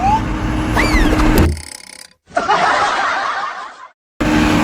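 A string of rising horn notes over a low engine rumble, cut off abruptly about one and a half seconds in. After a brief silence, a noisy sound effect plays for about a second and a half. After another short silence, the rumble and tones start again near the end.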